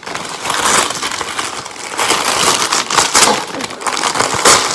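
Brown kraft paper wrapping crinkling and tearing as a taped parcel is ripped open by hand, in several uneven bursts, loudest about three seconds in and again near the end.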